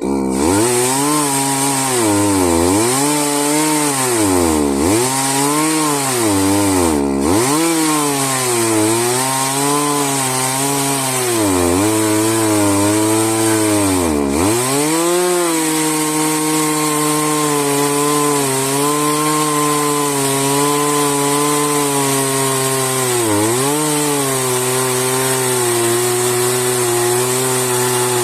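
Chainsaw on an Alaska-type chainsaw mill, running at high speed while ripping a log into boards. Its engine pitch dips and recovers every couple of seconds for the first half as the saw loads up in the cut, then holds steady.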